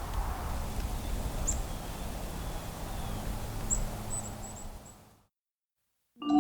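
Faint outdoor woodland ambience with a steady low hum and a few short, thin, high bird notes, fading out to silence about five seconds in.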